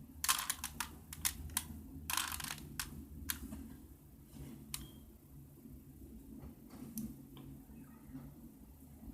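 Rubik's cube being turned by hand: a quick run of plastic clicks and clacks in the first few seconds, then only an occasional click as the turning slows.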